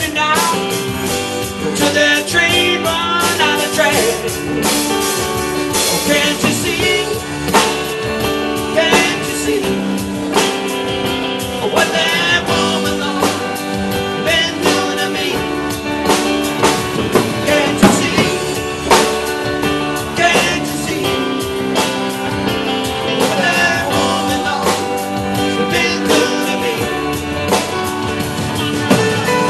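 Live band playing: drum kit and electric guitar, amplified.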